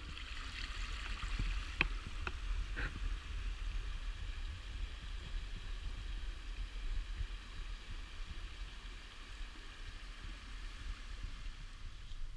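Small rocky forest creek trickling over stones, a steady watery hiss that eases off toward the end, with a few short sharp ticks about two seconds in and a low rumble underneath.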